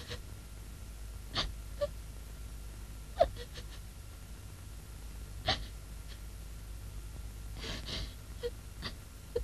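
A young woman crying: a string of short gasping sobs and breaths, the loudest about three seconds in, over a steady low hum.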